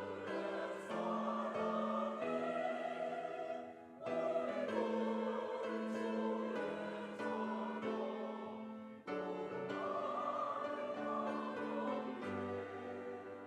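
Church choir singing a sacred anthem in harmony, with piano accompaniment, in sustained phrases that break briefly about 4, 9 and 12 seconds in.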